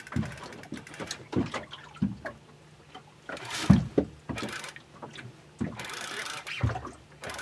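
Sea water slapping and lapping against a small boat's hull: irregular low knocks with a few louder, splashy rushes, the loudest a little past the middle.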